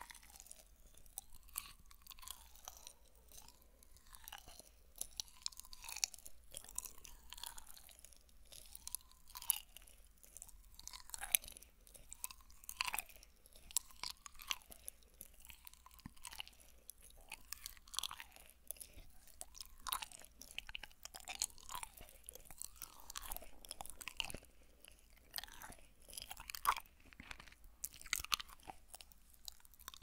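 Wet chewing and mouth sounds right at a binaural microphone's ear: soft sticky squelches about once a second, scattered with sharp clicks.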